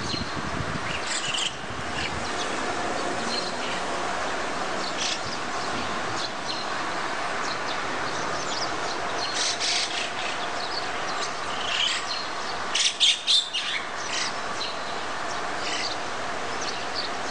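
Small birds chirping on and off over a steady background hum, with a quick run of four loud chirps about thirteen seconds in.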